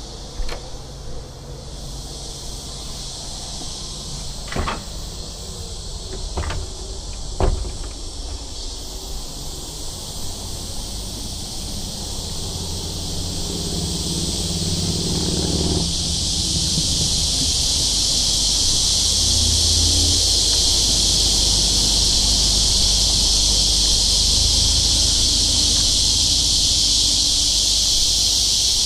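Summer cicada chorus, a steady high drone that grows louder about halfway and holds. A few sharp clicks come in the first few seconds, and a low rumble swells and fades about halfway.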